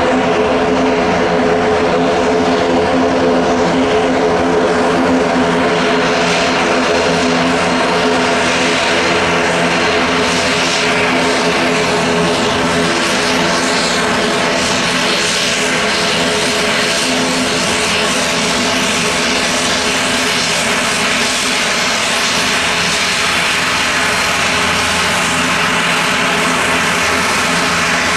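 Aircraft turbine engines running steadily on the ground: a dense stack of steady tones under a hiss that grows stronger about ten seconds in.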